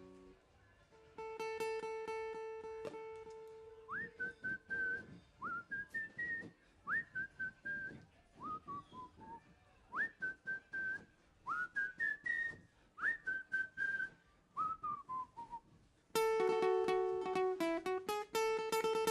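A man whistling a melody over softly picked acoustic guitar, many of the notes starting with a quick upward slide. About three seconds before the end, the strings come in much louder, strummed fuller.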